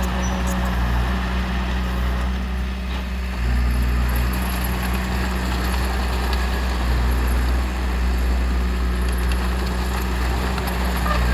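Heavy diesel engine of construction machinery running steadily at a low, even drone, its note stepping up a little about three and a half seconds in.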